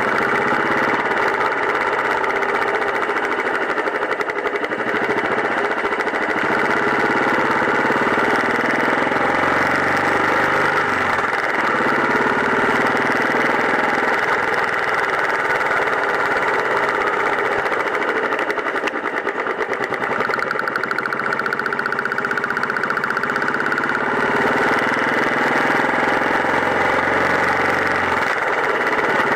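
Motorcycle engine running steadily while riding, its note shifting a few times.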